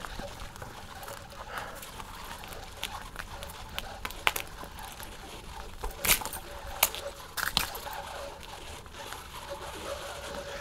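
Bicycle ridden over snowy ground: a steady crunch and hiss from the tyres, with scattered sharp clicks and knocks, the loudest about six and seven seconds in.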